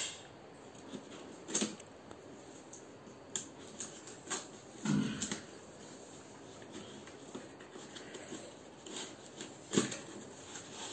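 Cardboard shipping box being handled and opened by hand: scattered rustles, scrapes and taps, with a few louder knocks, the loudest about five seconds in.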